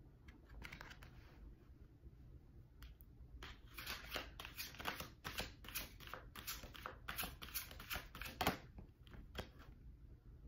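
Tarot cards being shuffled and slid against each other by hand: a run of quick, quiet flicks and scrapes that starts a few seconds in and stops shortly before the end, the sharpest one near the end.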